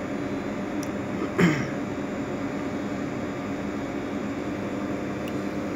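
Steady background hum and hiss with a few faint steady tones, broken once by a brief louder sound about one and a half seconds in.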